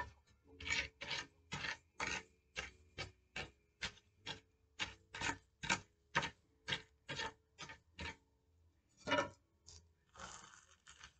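Hard rasping strokes rubbing back and forth on paper, about two to three a second, stopping about eight seconds in. Then one longer stroke and a longer rasp near the end.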